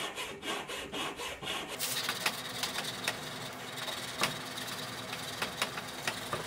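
Coarse-cut hand file rasping back and forth across an aluminium part clamped in a vise, about three strokes a second. About two seconds in it gives way to a steadier scraping with scattered ticks as work moves onto the curved edge of the ring.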